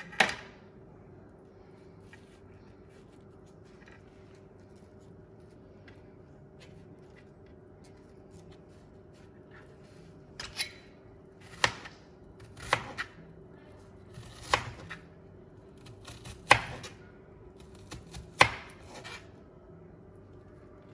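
Kitchen knife chopping an onion on a cutting board: one chop right at the start, then after a long quiet stretch a run of about eight irregular chops in the second half.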